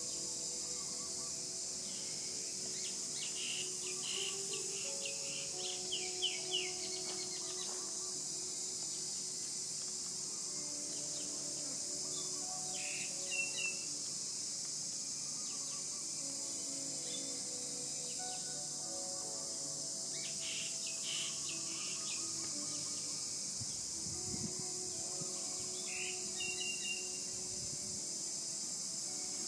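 A steady high-pitched insect drone, with short runs of bird chirps four or five times.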